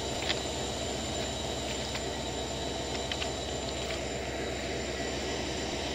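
Steady low mechanical hum with an even hiss beside a stationary, derailed electric freight locomotive. There are faint clicks about a third of a second in and again about three seconds in.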